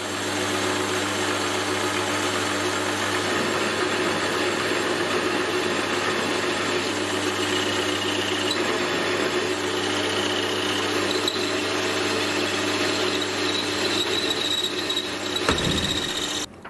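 Metal lathe running steadily while turning a hinge pin, a constant machine drone with a faint high whine from the cut at times; it stops suddenly near the end.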